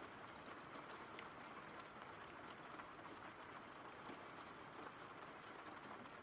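Faint, steady rain with scattered drop ticks, from a rain-sounds backing track.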